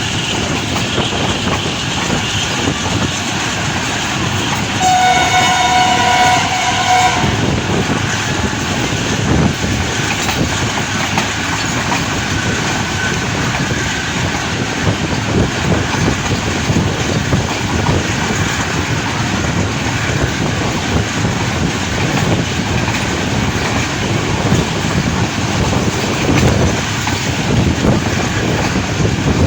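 Train running along the track with a steady rolling rumble, and the AGE-30 diesel locomotive's horn sounding once, about five seconds in, for about two and a half seconds.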